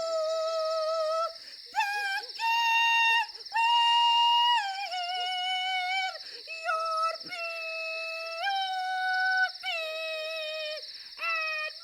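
An old woman's character voice singing loudly in a very high register, holding long notes that step up and down in pitch with short breaks between phrases. It is the nightly singing that disturbs the whole village.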